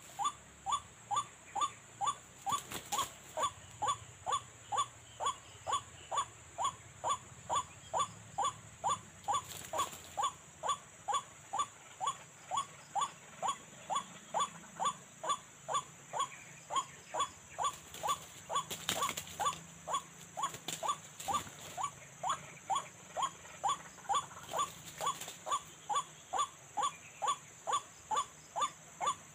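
White-breasted waterhen call used as a lure: one short note repeated evenly, a little over twice a second, without a break. A steady high whine runs beneath it.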